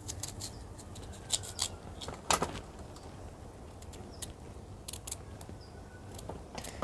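Knife slicing a peeled elephant foot yam held in the hand, with scattered light clicks and clinks as pieces drop onto a steel plate; the loudest click comes a little over two seconds in.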